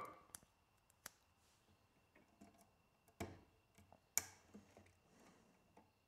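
A few faint, sharp clicks spaced irregularly as stripped copper wires are handled and clamped into lever-style Wago wire connectors.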